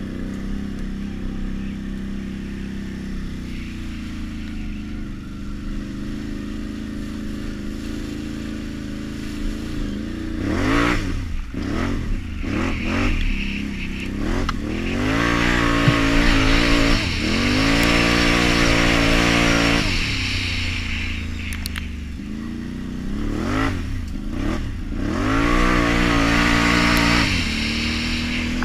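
2016 Can-Am Renegade 850 ATV's V-twin engine through a Yoshimura exhaust. It runs steadily at low revs at first, then about ten seconds in it gives several quick throttle blips that rise and fall in pitch, holds high revs for a few seconds, drops back, and revs up hard again near the end.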